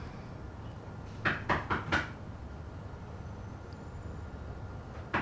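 Knocking on a door: four quick knocks about a second in, then another round of knocks starting near the end.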